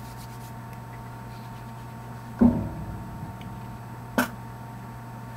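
Steady low electrical hum, with a brief low thud about two and a half seconds in and a short sharp click near the end.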